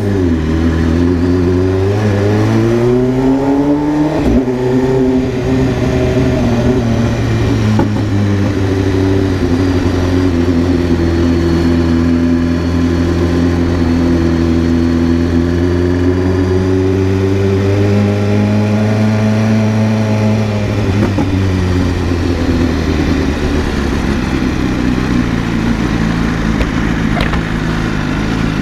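BMW S1000RR inline-four engine under way: it revs up with rising pitch, drops sharply at a gear change about four seconds in, and then holds a steady pitch. About twenty seconds in the revs fall as the bike slows, then settle again at a lower pitch.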